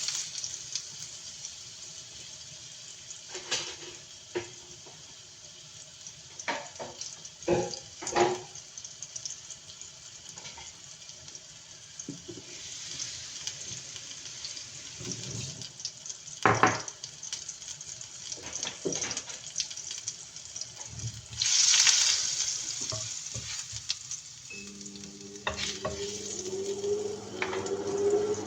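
Food sizzling as it fries in a pan, with a steady hiss and now and then the knock and scrape of a utensil stirring it against the pan. The sizzle flares up about two-thirds of the way through.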